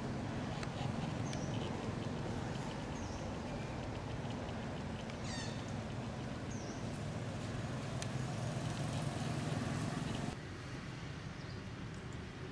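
Short high-pitched animal calls every second or two, with one longer wavering call about five seconds in, over a steady low background noise that drops off about ten seconds in.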